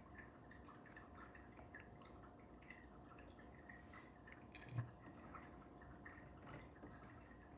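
Faint small clicks and taps of a Mul-T-Lock Interactive dimple lock's pins and parts being handled as the cylinder is taken apart, with one sharper knock near the middle.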